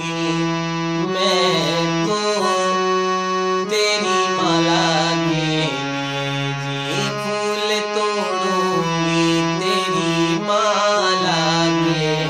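Harmonium playing a slow bhajan melody: reedy notes held for about a second each, stepping from note to note, with a lower note sounding underneath.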